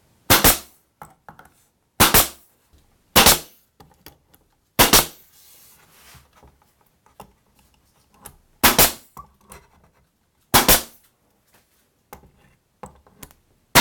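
Pneumatic 21-gauge pin nailer firing six times at uneven intervals, driving pins through wood window casing. Each shot is short and sharp, with faint clicks of the gun being moved between shots.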